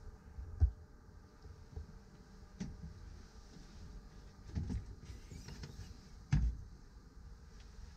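A few scattered knocks and thumps from a hinged wooden hatch lid in a boat's dash being unlatched and swung open on its gas strut. The loudest thumps come about half a second and about six seconds in, with a small cluster of knocks in between.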